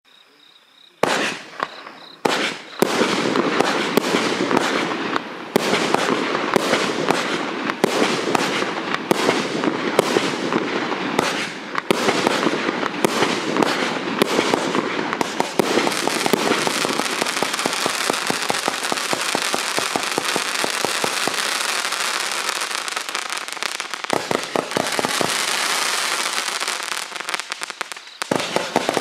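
A 78-shot finale firework cake firing, starting about a second in with rapid shots in quick succession that thicken into nearly continuous crackling for most of the second half, dipping briefly near the end.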